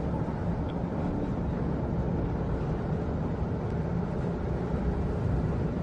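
Steady low rumble of a moving train carriage heard from inside.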